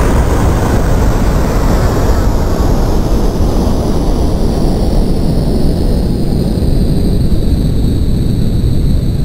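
Explosion sound effect on an Amiga demo soundtrack: a long, loud rumbling blast that starts suddenly and runs on steadily, its high hiss slowly falling away while the low rumble holds.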